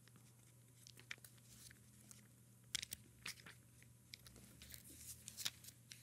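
Thin Bible pages being leafed through by hand: faint, scattered paper rustles and flicks, the sharpest a little under three seconds in, over a low steady hum.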